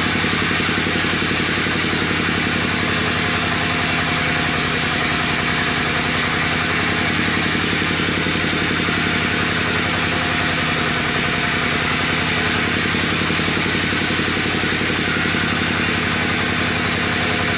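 An engine running steadily at idle, an even hum that holds the same pitch throughout.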